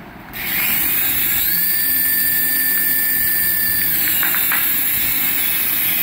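Toy RC helicopter's electric motors spinning its twin coaxial rotors while it is held in the hand: a steady high whirr that starts shortly after the beginning, with the whine stepping up a little over a second in and easing back near four seconds.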